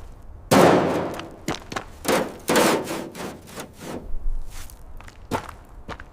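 A series of sharp, heavy impacts with short ringing decays, the first about half a second in and the loudest, the rest following irregularly about every half second to a second.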